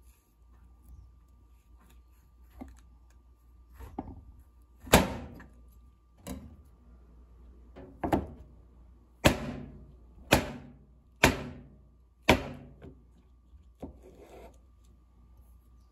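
Chef's knife chopping through a green-cracking russula mushroom cap onto a cutting board: a few faint taps, then a string of sharp knocks about a second apart, the first of them the loudest.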